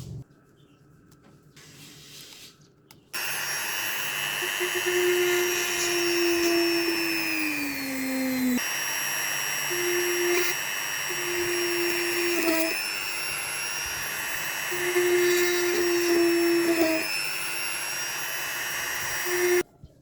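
A small electric motor running with a steady whir and high whine. It starts suddenly about three seconds in and stops abruptly near the end, with a lower hum that comes and goes and once slides down in pitch.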